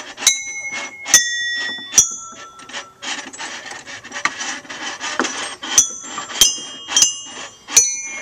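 A string of sharp clinks, about seven, each ringing briefly with a small bell-like tone at a different pitch, with a few seconds of rubbing or scraping in the middle.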